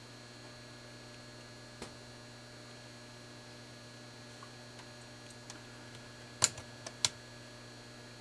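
Steady electrical mains hum under a few sharp clicks: a faint one about two seconds in and two loud ones near the end, about half a second apart.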